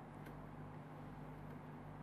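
Quiet room tone: a steady low hum under faint hiss, with one faint click about a quarter second in.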